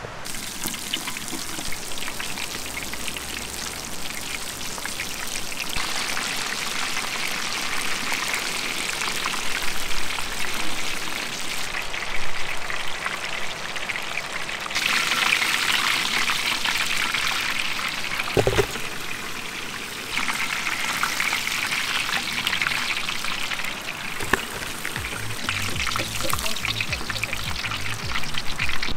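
Chicken pieces deep-frying in hot oil: a steady crackling sizzle that grows louder and quieter in stretches.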